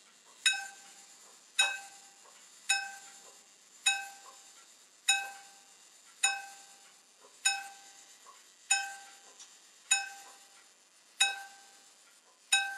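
Pocket-watch repeater's hammer striking its gong: one even strike about every 1.2 seconds, each ringing out with a clear metallic tone before the next.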